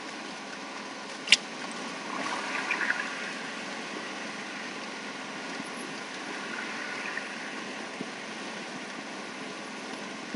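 Steady road and engine noise heard inside a vehicle's cab at highway speed, with one sharp click a little over a second in.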